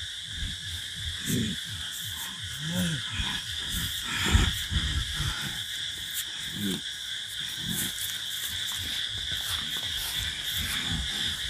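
A man's low growling grunts, about five short ones spread out, the strongest about four seconds in, over a steady high chirring insect chorus.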